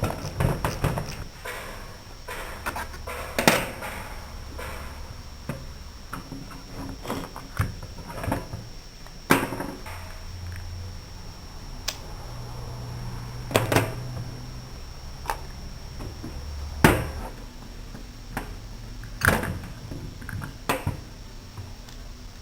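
Irregular sharp metallic clicks and knocks, about a dozen, as tools and parts of a permanent-magnet starter motor are handled during its disassembly.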